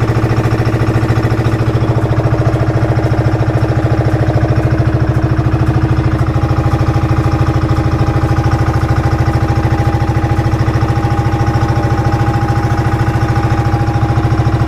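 Bangka (outrigger boat) engine running steadily under way, a loud, fast, even throb; a steady higher whine joins about six seconds in.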